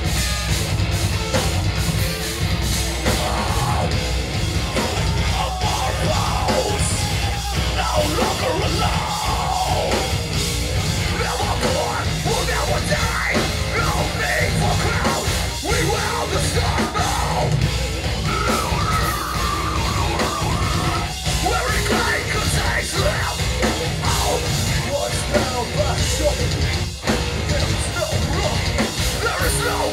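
Live heavy metal band playing loud, with distorted electric guitars, bass and drums, and a vocalist yelling over the music.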